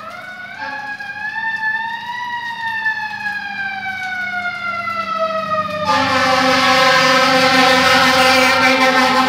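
Fire engine's Federal Q2B mechanical siren winding up briefly, then slowly coasting down in pitch. About six seconds in, a loud air horn blast comes in over it and is held for about three seconds, the whole growing louder as the pumper approaches.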